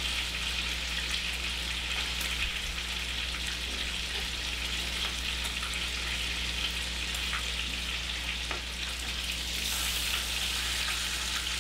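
Thick-cut pork belly sizzling steadily in a frying pan over low heat, with a few faint pops, over a steady low hum.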